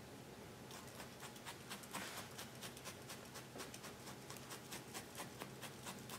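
Multi-needle felting tool stabbing repeatedly through wool into a felting pad: faint soft pokes, about three to four a second, starting about a second in.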